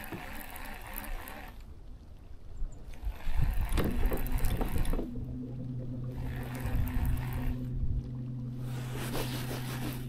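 Electric trolling motor humming at one steady pitch, switched on again about five seconds in. Water lapping and a few low bumps around it, loudest between about three and five seconds.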